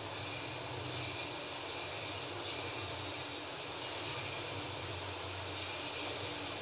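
Jalebi batter frying in hot oil in a steel kadai, sizzling with a steady hiss.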